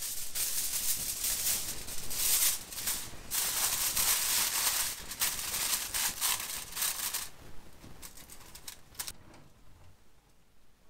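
Aluminium foil crinkling as it is pressed and crimped down over a pot: about seven seconds of dense crackling, then a few lighter crackles.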